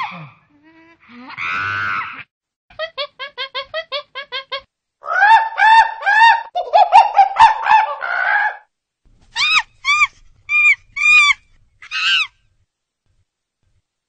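Bird calls: a run of short, evenly spaced arched notes at about five a second, then a louder, denser run of calls, then a few separate calls.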